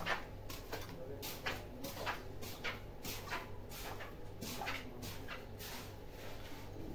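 Irregular light clicks and knocks, a few a second, over a steady low hum.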